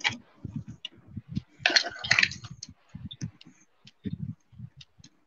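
Irregular soft taps and clicks of a computer keyboard and mouse as someone works in a drawing program, with a short rustling hiss about two seconds in.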